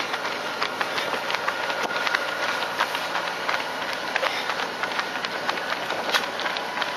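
Running shoes of a pack of lead runners striking asphalt: a fast, uneven patter of footfalls from several runners at race pace.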